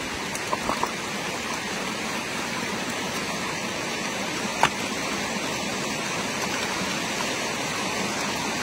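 Shallow rocky stream water rushing steadily, with a few short knocks near the start and a sharper one about halfway through.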